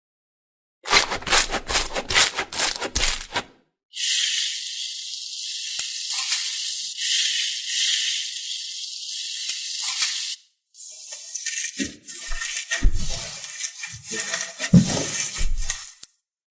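Slime being played with by hand, in three short clips: first a dense run of crunchy crackling, then several seconds of steady high hissing like rattling beads or granules, then more crackling and squishing with a few low thuds.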